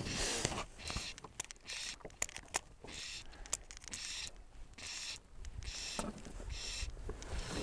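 Fly line being stripped in by hand through the rod rings while a hooked brown trout is brought to the boat: a short rasping hiss repeated roughly once a second, with a few faint clicks and a low rumble underneath.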